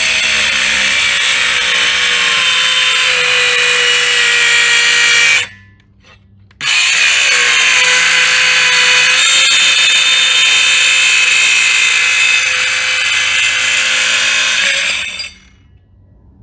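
Cordless mini circular saw with a tile blade cutting through tile: a loud high whine whose pitch sinks as the blade bites. It stops for about a second near the middle, runs again, then cuts off near the end. The blade needs hard pushing and leaves a jagged edge, and the owner doubts the motor has the strength for tile.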